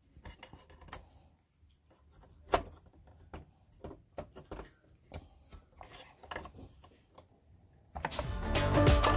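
Light metal clicks and taps of parts being fitted by hand to an NSU Quickly 48 cc moped engine, the clutch and its lock clip going on, with one sharper knock about two and a half seconds in. Music comes in loudly near the end.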